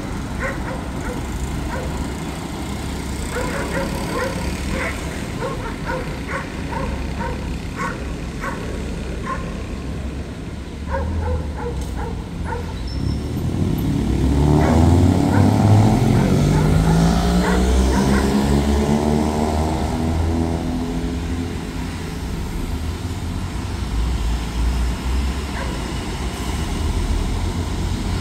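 Street traffic noise with a dog barking repeatedly through the first half. About fourteen seconds in, heavy trucks accelerate through the intersection, their engines rising in pitch; this is the loudest part.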